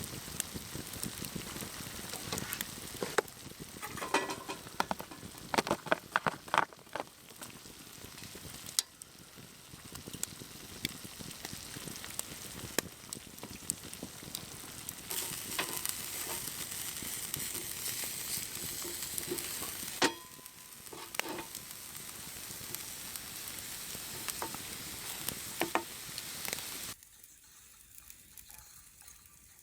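Food sizzling as it fries in a pan, with utensils clinking and knocking against the pan as it is stirred. The sizzle stops abruptly near the end.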